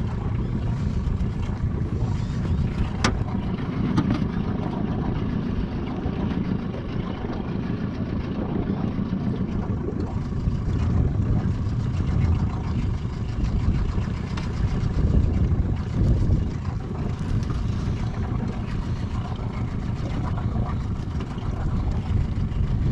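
Strong wind buffeting the microphone on an open boat: a loud, uneven low rumble that surges and eases, with one sharp click about three seconds in.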